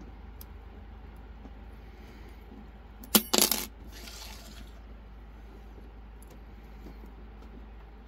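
Small metal lockpicking tools dropping and clattering onto a hard surface about three seconds in: two quick, sharp metallic clinks with a short ring, followed by a softer rattle.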